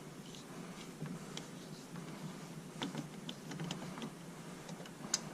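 Faint, irregular light clicks and taps of a hand tool working a T30 Torx bolt loose, with one sharper click about five seconds in.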